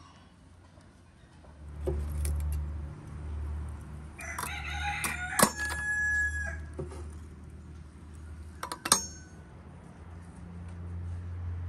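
A rooster crowing once, a drawn-out call starting about four seconds in. Two sharp metallic clanks, from iron fire tongs against a wood stove, come about five and a half and nine seconds in.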